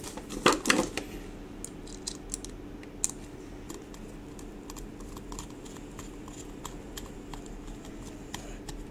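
Screwdriver driving the cover screw into a plastic three-pin plug. A quick cluster of sharp plastic clicks and knocks comes about half a second in, then scattered light ticks as the screw is turned, over a faint steady hum.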